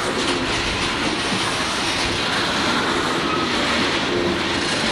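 CSX freight train's open-top hopper cars rolling past steadily, their steel wheels running on the rails, with a few brief faint squeals from the wheels on the curve.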